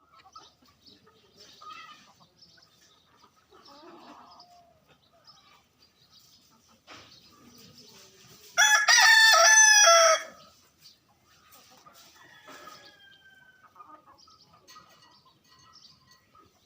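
A rooster crows once, loud, about halfway through: one cock-a-doodle-doo lasting about a second and a half. Faint clucks and chirps of other birds come before and after it.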